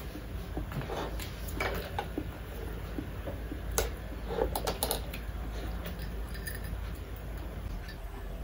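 Close-up eating sounds: chewing and lip smacking, with scattered short clicks and smacks over a steady low room hum.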